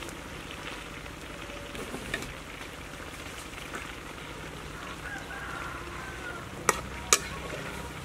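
Water mimosa greens sizzling as they are stir-fried in a hot steel wok. Near the end, two sharp clanks close together, the metal spatula striking the wok.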